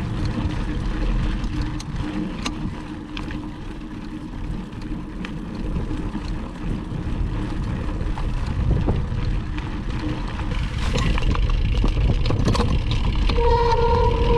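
Riding a mountain bike on a dirt trail: wind buffeting and rumble on the microphone, with scattered rattles and clicks from the bike over rough ground. Near the end a steady pitched squeal comes in for about a second and a half.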